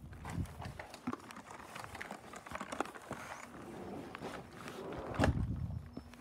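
Handling noise from a phone's built-in microphone rubbing and bumping against clothing: scattered clicks, knocks and rustling, with the loudest low rumbling scuff about five seconds in.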